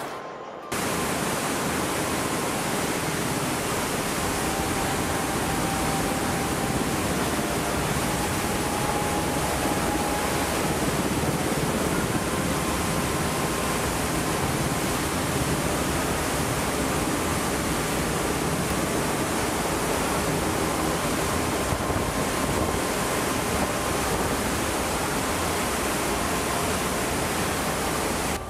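The last of a naval deck gun's shot dies away in the first second, then steady rushing wind and sea noise from a ship under way on open water.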